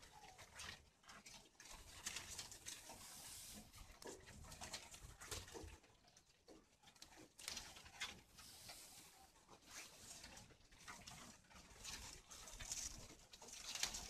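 Faint rustling and light irregular clicks of movement through grass and dry ground in a spotted-dove run, with faint bird calls.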